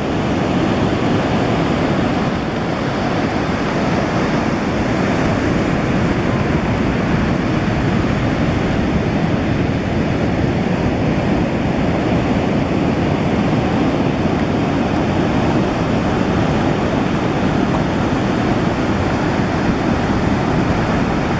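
Ocean surf: a steady rush of breaking waves, with no single crash standing out.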